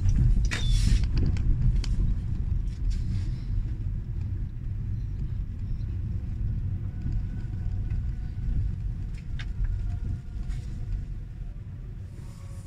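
Low rumble of a car's engine and tyres heard from inside the cabin as it drives slowly, growing quieter toward the end as it eases to a stop. A brief rattle comes about half a second in.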